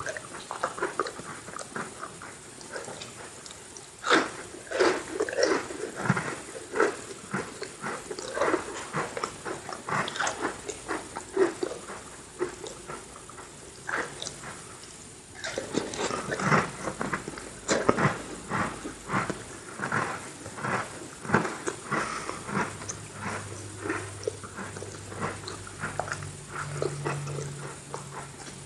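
Close-miked chewing of Oreo cookies: irregular crunches and wet mouth clicks, with no pause longer than about a second.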